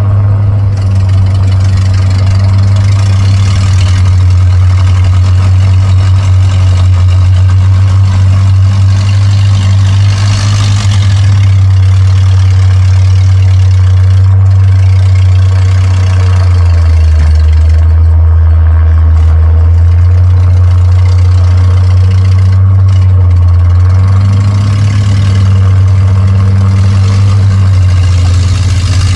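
A heavy truck's engine running steadily with a deep hum; it drops lower in pitch for several seconds past the middle, then comes back up.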